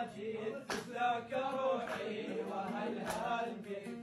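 A man singing an Iraqi folk song in long, drawn-out phrases, accompanied by a plucked oud.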